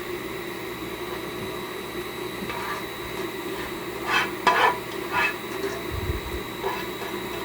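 A spoon scraping and clinking against a pan as a hot, saucy meat mixture is scooped out and dropped into a baking pan, with a few louder scrapes about four to five seconds in and a dull thump just after. A steady low hum runs underneath.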